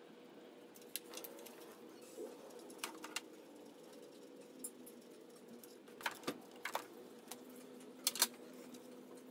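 A handful of sharp metallic clinks and clicks of hand tools against engine parts, some in quick pairs, over a steady low hum.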